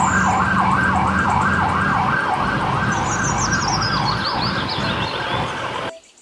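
Police car siren sounding a fast rising-and-falling yelp, about two sweeps a second, over the rumble of traffic. It cuts off suddenly near the end.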